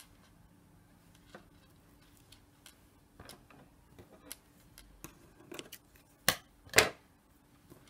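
Faint rustling and small clicks of beads and thread being handled, then two sharp snips about half a second apart near the end, typical of scissors trimming the ends of a knotted thread.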